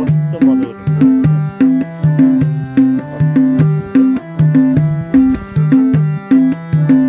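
Background music: pitched drum strikes alternating between a higher and a lower note in a steady beat, about two strikes a second.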